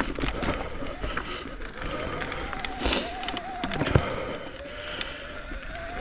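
Full-suspension mountain bike rolling over a rocky, gravelly trail: tyres crunching over loose stones with frequent clicks and rattles from the bike. There is a heavy thump about four seconds in.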